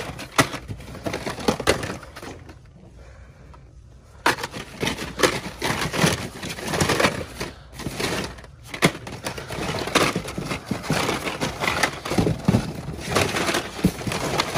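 Hot Wheels blister packs, cardboard cards with plastic bubbles, rustling and clacking against each other as a hand rummages through a box of them. The handling pauses briefly about two seconds in, then carries on steadily.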